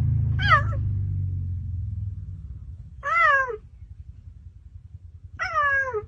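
Cheetah chirping: three short, high calls, each rising and then falling in pitch, about two and a half seconds apart. A low steady rumble underneath fades out in the first two seconds.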